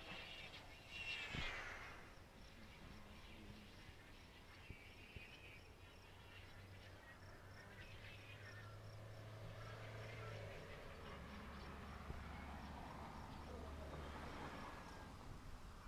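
Faint outdoor background sound, with a brief whoosh falling in pitch about a second in.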